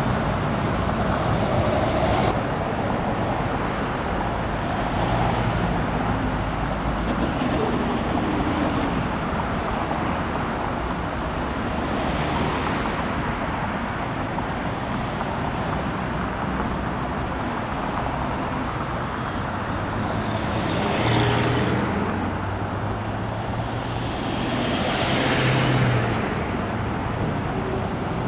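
Steady rush of highway traffic, with two louder vehicles passing about three-quarters of the way through and again near the end.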